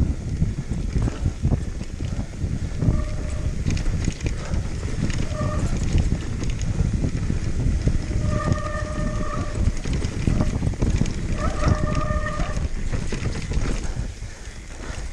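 Downhill mountain bike rattling and knocking over rough trail, with wind rushing over the ride-along microphone. Four short pitched squeals cut through, the last two longer.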